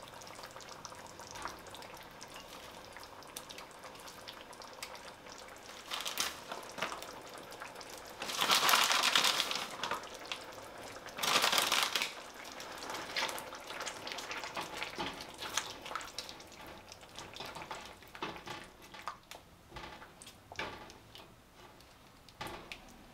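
Tomato sauce with chicken simmering and bubbling in a stainless steel frying pan, with two louder rushes of sizzling about eight and eleven seconds in as broccoli and cheese go into the pan. Near the end, metal tongs stirring the pan give light clicks.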